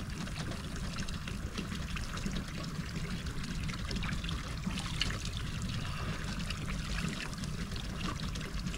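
Water trickling steadily from the spout of a hand pump into a wooden log watering trough.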